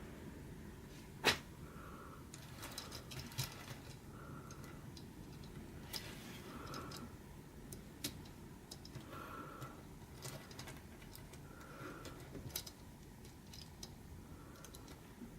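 Small plastic clicks and knocks of LEGO Technic parts being handled, with one sharper click about a second in. A faint short tone recurs about every two and a half seconds.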